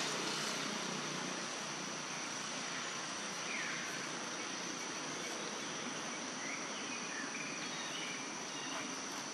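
Steady outdoor ambience of insects calling, a constant high buzzing tone over an even hiss, with a few faint short chirps near the middle.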